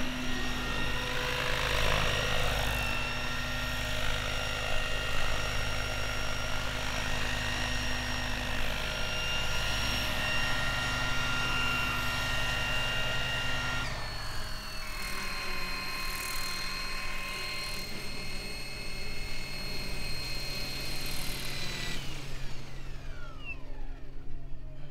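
Goblin Kraken electric RC helicopter's motor and rotor whine, holding a steady pitch for much of the time. The pitch drops sharply at one point, and near the end the tones glide downward as the rotor spins down after landing.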